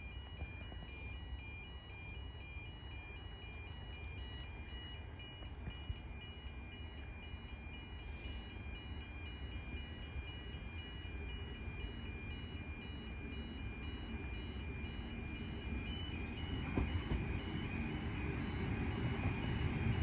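Level crossing alarm sounding a steady run of repeating electronic beeps while an Endeavour diesel railcar approaches. The railcar's engine and wheel rumble grow steadily louder, strongest near the end.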